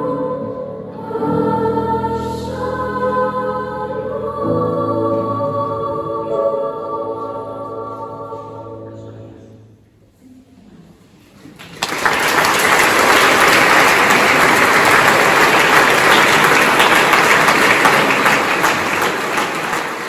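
Children's choir singing the closing phrases of a piece, the final held chord dying away about halfway through. After a short hush, the audience breaks into steady applause.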